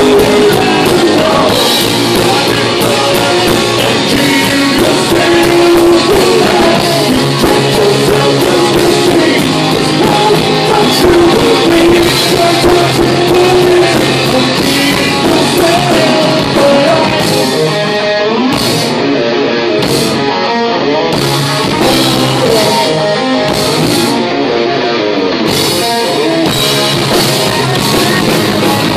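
Live rock band playing loudly, with electric bass, guitar, a drum kit and a singer's vocals. For several seconds past the middle, the cymbals and highest sounds cut in and out in a stop-start passage before the full band comes back.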